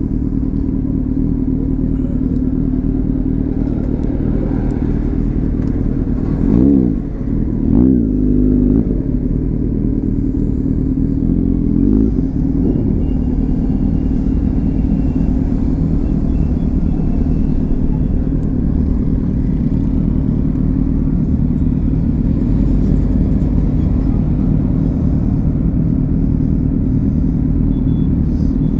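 Motorcycle engine running at low road speed under the rider, with a few short throttle blips in the first half, two close together and one a few seconds later, and a steady drone the rest of the time.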